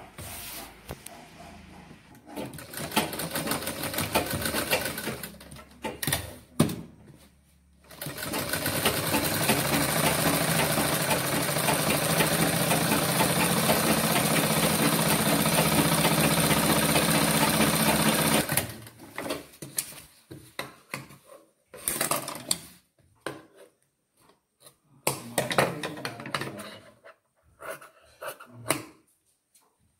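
Sewing machine stitching a seam through cotton fabric, with the needle clattering rapidly: a run of about three seconds, a short pause, then one steady run of about ten seconds. Scattered short clicks and brief bursts follow as the fabric and thread are handled.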